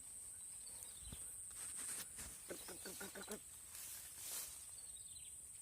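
A steady high-pitched insect drone, crickets or cicadas, with a short run of rapid pulsed calls about midway through.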